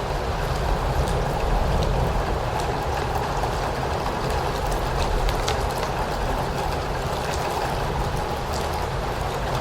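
Steady rainfall with a low rumble underneath and scattered sharper drop ticks.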